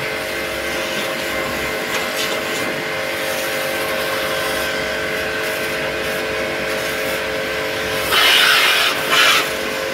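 High-pressure jet washer's pump motor running with a steady hum under the hiss of the water jet. The spray gets markedly louder twice near the end as the jet strikes the wet floor.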